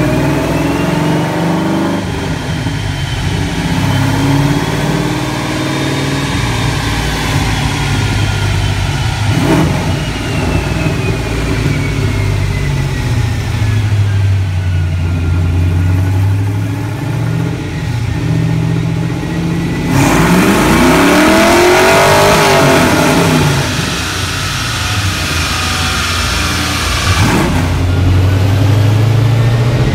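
Ford 5.0 V8 of a 1989 Mustang GT running, mostly at a steady idle. About two-thirds of the way through it is revved up and back down once, louder.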